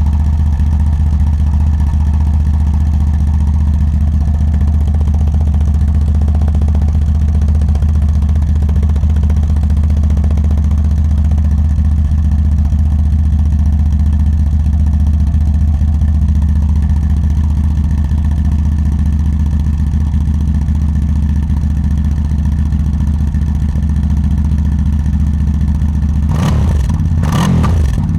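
CF Moto ATV engine idling steadily. About two seconds before the end the engine note shifts and there are several sharp knocks.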